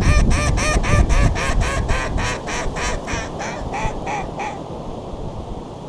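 A long run of mallard-style quacks, about four a second, loud at first then fading and slowing until they stop about four and a half seconds in. Low wind rumble runs underneath.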